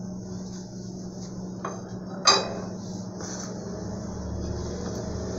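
Fingers rubbing butter into flour in a stainless steel mixing bowl: soft rustling with a few light knocks and clinks against the metal bowl, the sharpest about two seconds in, over a steady low hum.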